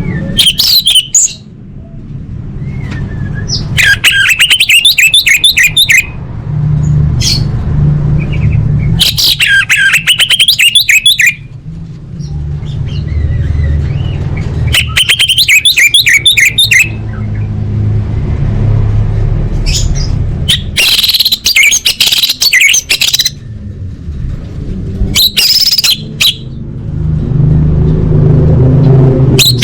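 Orange-headed thrush singing in loud phrases of rapid, varied notes, about seven bursts each a second or two long with pauses between, over a steady low hum.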